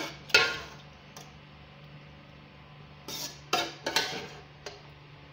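Metal spoon knocking and scraping against a metal cooking pot while beef korma is spooned onto the rice, in layering biryani: a sharp clink at the start, then a cluster of four or five clinks and scrapes from about three seconds in.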